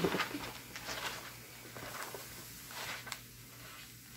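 Quiet, scattered squeaks and small clicks from a squeaky chair as the sitter shifts in it. The most noticeable squeak comes right at the start.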